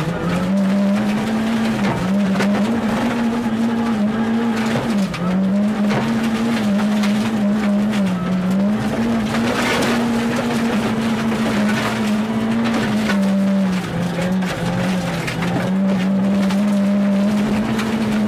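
Ford Fiesta R2's 1.6-litre four-cylinder engine at high revs, heard from inside the cabin, its note held steady with brief dips several times as it lifts or shifts. Gravel crackles and rattles under the car throughout.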